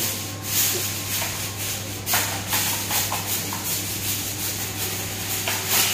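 Aluminium foil crinkling and rustling in irregular bursts as hands press and smooth it over the top of a large cooking pot, over a steady low hum.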